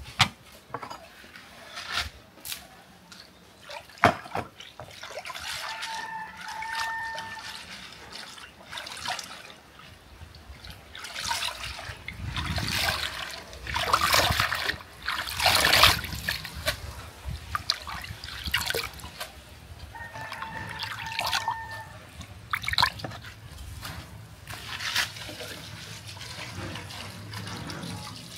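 Water splashing, trickling and dripping as African basil leaves are washed by hand, with a few sharp knocks in the first few seconds.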